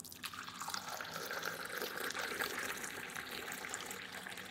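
Steady sound of liquid: a faint watery hiss with many small crackles.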